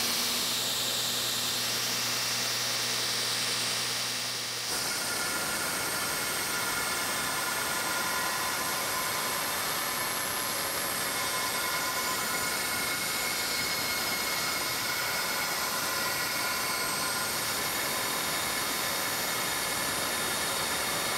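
A 2x72 belt grinder running, its motor humming steadily under the hiss of the belt. About five seconds in, the sound changes suddenly to steel being ground against the moving abrasive belt: a harsh, steady grinding noise with a high whine over it.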